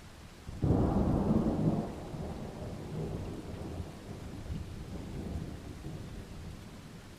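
A thunderclap breaks suddenly less than a second in, then rolls on as a rumble that slowly fades over several seconds, with steady rain falling underneath.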